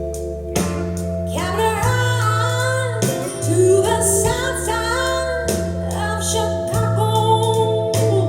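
Recorded music played back through hi-fi loudspeakers: a slow piece with a melody line gliding over low bass notes that change about every second or so.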